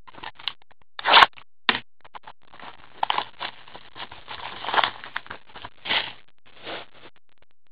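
Shrink wrap being torn off a factory-sealed Upper Deck Artifacts hockey card box: a couple of short rips, then a longer spell of crinkling and scratching as the wrapper comes away and the box is opened, and one more short rip near the end.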